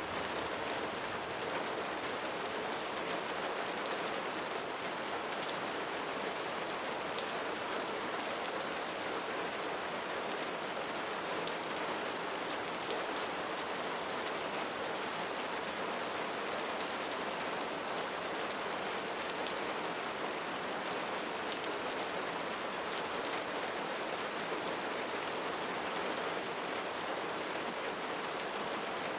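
Steady rain falling on leaves: an even, dense hiss with faint scattered drop ticks.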